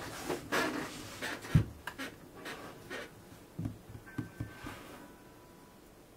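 Rustling and handling noises as hands and clothing shift against a desk and chair, with a sharp thump about one and a half seconds in and a few softer knocks a couple of seconds later. It then settles to quiet room tone with a faint thin steady tone.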